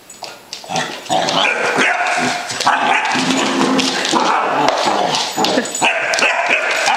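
Basset hound puppy barking almost without pause, starting about a second in after a couple of short sounds.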